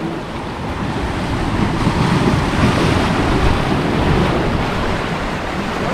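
Strong wind rumbling on the microphone, with surf washing behind it.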